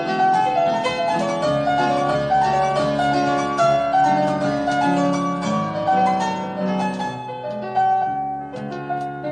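Instrumental background music: a melody of short plucked or struck notes over lower accompanying notes.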